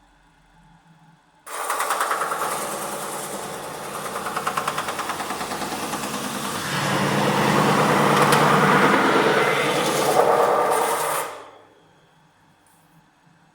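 CNC metal spinning machine forming a 1.5 mm DKP steel sheet: the roller pressing on the spinning blank gives a loud noise with a fast, even chatter, starting about a second and a half in, growing louder halfway through and stopping abruptly about two seconds before the end. A low machine hum runs before and after.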